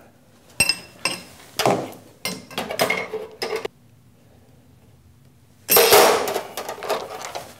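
Wrench clinking and scraping on a motor mounting nut as the last nut holding the new 3-phase motor in the lathe base is tightened. Several sharp metal clinks in the first few seconds, a pause, then a longer, louder scraping rattle near the end.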